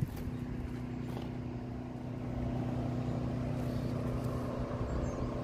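Distant pump running with a steady low hum, which sounds like a flooded house being pumped out.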